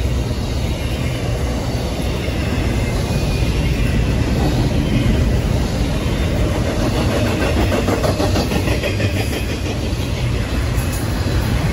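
Double-stack intermodal well cars rolling past at speed: a steady rumble of steel wheels on the rails.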